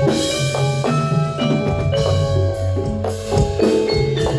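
Javanese gamelan ensemble playing: struck bronze metallophones ring out in a running melody over low drum strokes.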